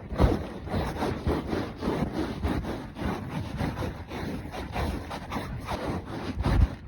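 Hoofbeats of a horse being ridden, a continuous run of knocks, with wind buffeting the microphone.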